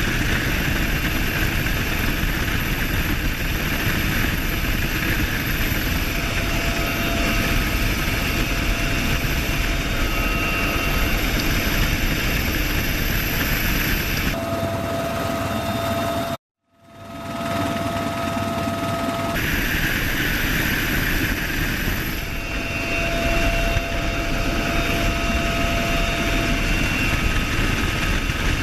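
Bell UH-1Y Venom helicopter running steadily: a dense rotor and twin-turboshaft roar with a thin, high turbine whine over it. The sound cuts out completely for a moment about two-thirds of the way through and changes character a few times across edits.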